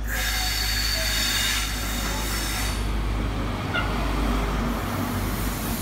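InterCity 125 (HST) class 43 diesel power car and its coaches passing close along the platform: a steady low engine hum under wheel and rail noise.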